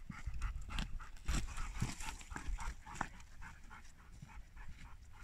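A dog panting in quick, even breaths close by, over footsteps on a dry, stony trail about twice a second.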